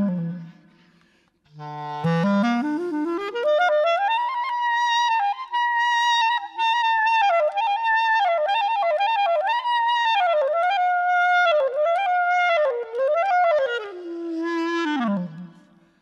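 Music: a solo wind-instrument melody. After a short pause it swoops up in one long slide from a low note to a high one about two seconds in, weaves and bends around the high register, then slides back down near the end and fades out.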